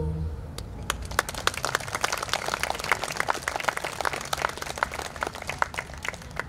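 The last low note of an a cappella chord cuts off at the very start, then an audience claps, with individual claps distinct, from about half a second in.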